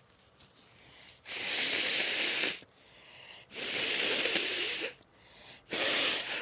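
A person blowing their nose three times: two long blows of over a second each, then a shorter third near the end.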